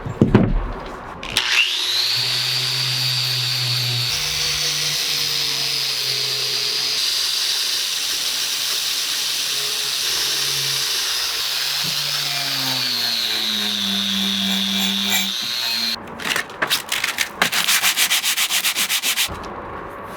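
Angle grinder with a wire brush wheel spinning up and grinding against a rusty steel axe head to strip and polish it. The motor whine holds a steady pitch, sags under load partway through, and stops about three-quarters of the way in. A few seconds of rapid, uneven rasping follow.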